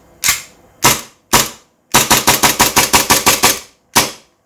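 Gas-blowback Golden Eagle Hi-Capa 4.3 gel blaster pistol firing: three single shots, then a quick string of about a dozen at roughly eight a second, then one more shot.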